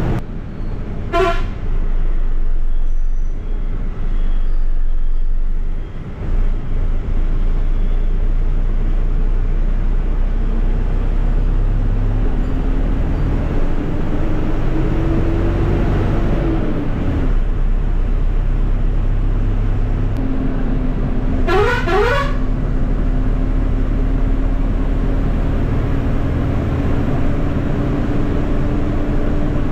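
Ashok Leyland bus's diesel engine running under way, heard from the driver's cab, its note climbing for several seconds past the middle and then dropping back. A short horn toot sounds about a second in, and a longer two-note horn blast about three-quarters of the way through.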